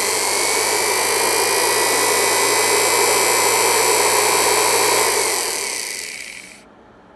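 Universal motor running at high speed, a steady whine over a hiss from its brushes and commutator. About five seconds in it winds down, its whine sliding lower, and it falls quiet shortly before the end.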